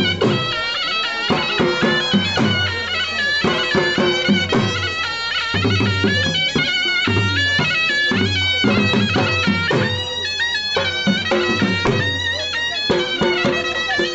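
Traditional folk dance music: a loud, reedy wind instrument plays a quick, stepping melody over a steady drone, with drum beats underneath.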